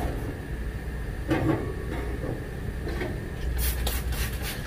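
Countertop toaster oven door and rack handled with a few soft knocks and clatters as bread rolls go in. Near the end come several quick squirts from a plastic trigger spray bottle, misting the bread with water before toasting so it doesn't dry out.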